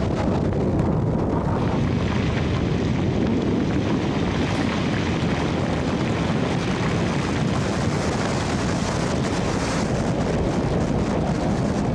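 Tornado winds blowing hard past a highway overpass, buffeting the microphone with heavy wind noise. A steady, dense rush, strongest in the low range, with no let-up.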